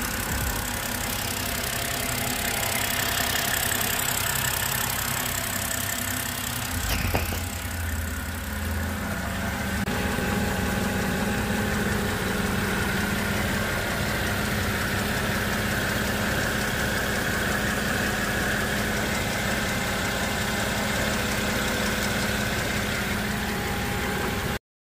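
2008 BMW 528i's straight-six engine idling steadily, heard close to the exhaust manifold downpipes with the new catalytic converters, flange gaskets and O2 sensors fitted. There is a brief knock about seven seconds in.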